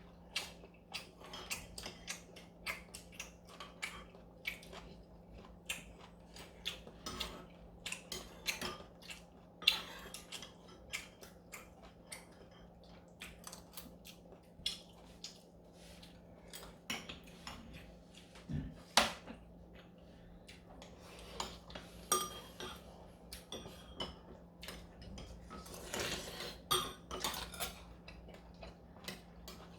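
Cutlery clinking and scraping against bowls and dishes during a meal of galbitang, in many irregular sharp clicks, over a faint steady hum.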